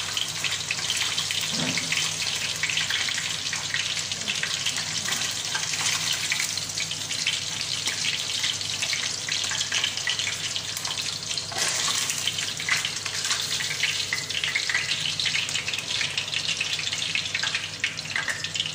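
Salmon pieces frying in hot oil in a pan: a steady crackling sizzle.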